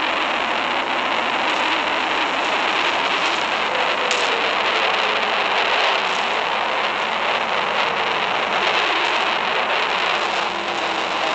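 Steady loud rushing noise with no break, with a faint tone sliding slowly down in pitch through the second half.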